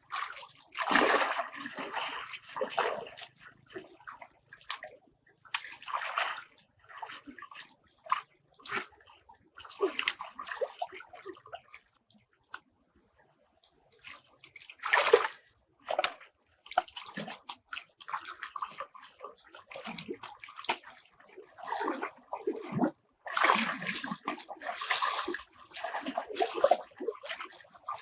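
Water sloshing and splashing in irregular bursts, with a brief near-silent pause a little before halfway through.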